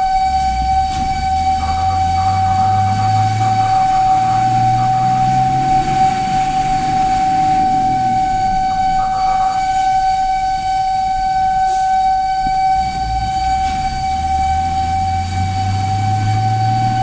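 Fire engine's warning siren sounding one continuous steady tone, heard from inside the cab. Under it the truck's engine rises in pitch several times as it accelerates through the gears.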